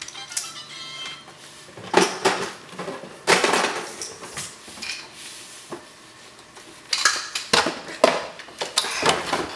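Hard plastic toys clattering and knocking together as a toddler handles them, in irregular bursts that are loudest about two seconds in, around three to four seconds in, and again near the end.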